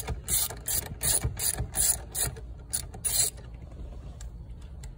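Socket ratchet clicking in quick short runs as the 19 mm steering-wheel nut is backed off, stopping a little over three seconds in.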